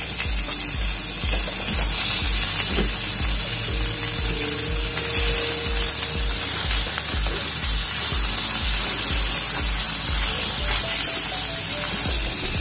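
Small whole fish sizzling and crackling in hot oil in a wok, over a low, regular beat of background music.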